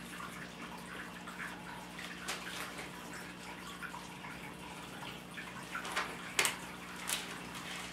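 Bible pages being turned, a few short papery rustles, the loudest near the end, over a low steady electrical hum and hiss.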